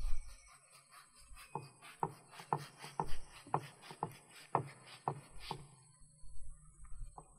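Large kitchen knife cutting through ripe jackfruit flesh: a faint series of short cutting strokes about two a second, then one more near the end.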